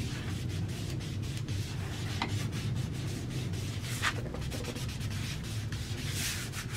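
Hands rubbing and smoothing paper, pressing a freshly glued file-folder flap flat, with irregular short scuffs and a couple of longer rubbing strokes, over a low steady hum.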